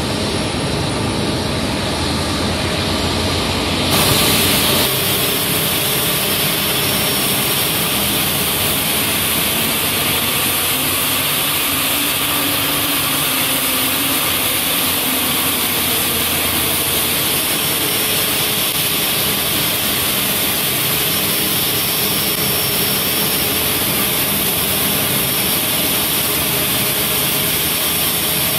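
Airbus A350-900's Rolls-Royce Trent XWB jet engines running at idle as the airliner taxis in: a steady, loud whine and rush. The sound steps up and turns hissier about four seconds in.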